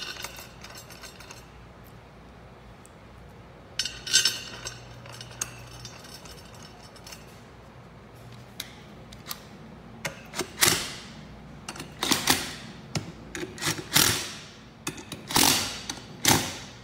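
Metal clinks as fasteners and the aluminium liquid chamber are handled. Then, from about ten seconds in, a cordless drill/driver runs in several short bursts, driving in the bolts that clamp the liquid chamber onto the air-operated double-diaphragm pump.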